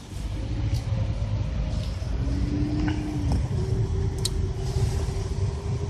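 A car's engine and tyres making a steady low rumble, heard from inside the car as it drives along slowly.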